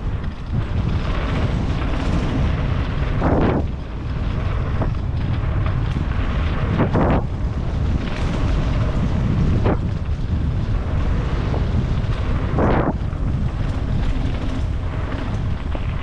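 Loud wind buffeting the microphone over the low rumble of a moving vehicle, with a few short louder gusts or jolts along the way.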